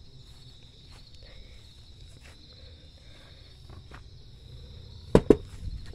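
Two sharp knocks of a fist on a siding-clad wall, close together about five seconds in. Before them only a faint, steady chirring of insects.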